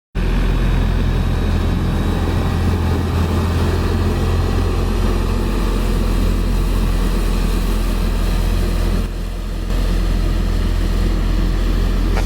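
A road roller's engine running steadily: a continuous low drone with a noisy rattle above it, which dips briefly about nine seconds in.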